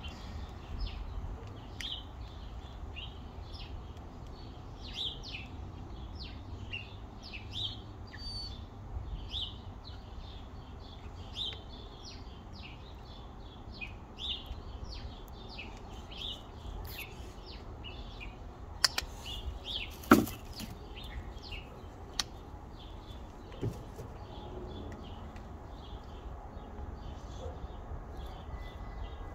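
Wild birds chirping in short, repeated calls, one every half second to a second. A couple of sharp clicks stand out about two-thirds of the way through.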